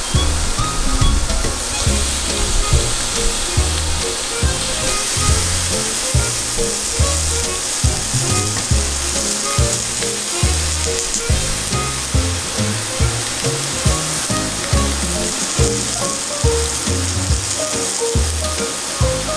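Sardine fillets sizzling steadily in a hot grill pan, searing in olive oil. Background music with a steady beat plays under the sizzle.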